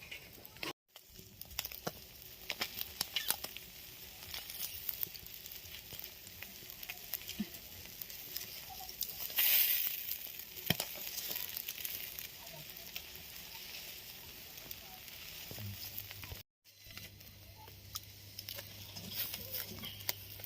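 Fish frying in hot oil: a steady sizzle with many small crackles and pops, swelling to a louder hiss about halfway through. A low hum runs under it near the end.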